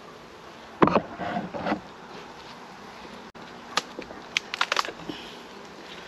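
Welsh black honeybees buzzing around an opened hive. A sharp wooden knock comes about a second in, and a run of short clicks and taps comes near the middle as the wooden honey super is handled.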